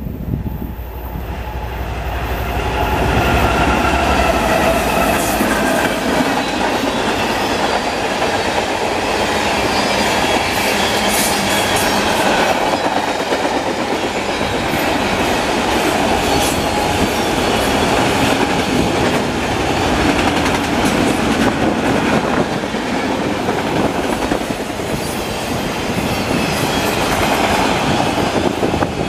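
Freight train of box cars and auto racks rolling past at speed: a steady heavy rumble of steel wheels on rail with clickety-clack and scattered sharp clicks and clanks. It grows louder over the first few seconds as the cars come close.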